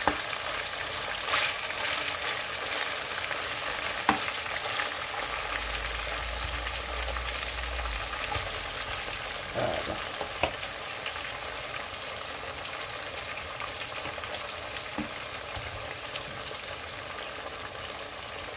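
Seasoned capitaine fish pieces sizzling as they fry in hot oil in a non-stick pan, steady throughout, with a couple of sharp clicks as a slotted spatula moves the pieces.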